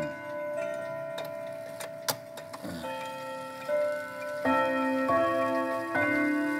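Junghans wall clock (W-series movement) chiming: a slow sequence of struck, sustained ringing notes, each new note sounding over the ringing of the ones before, with a few sharp clicks near the start.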